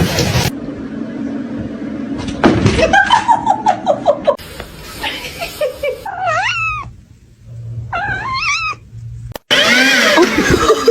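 Cats meowing: a run of separate meows across short cut-together clips, two of them clear calls that rise and then fall, about six and eight seconds in.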